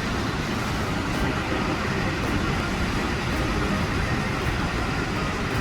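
Steady rushing noise of a large waterfall, an even, unbroken wash of falling water.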